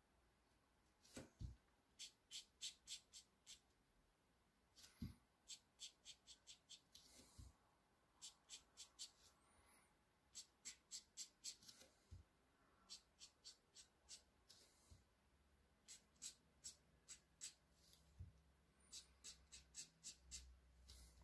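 Faint scratching of a fine-tipped ink pen on paper, in runs of quick short hatching strokes, several a second, separated by short pauses. A few soft knocks of the hand or pen against the drawing surface come between the runs.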